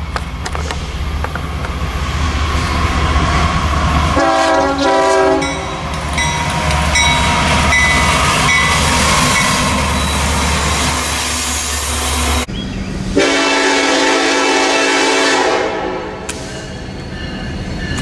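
Diesel freight locomotive horns blowing multi-note chords: a few short blasts about four seconds in, and a longer blast about thirteen seconds in. Between them runs the low rumble of a passing train's engines and rail cars.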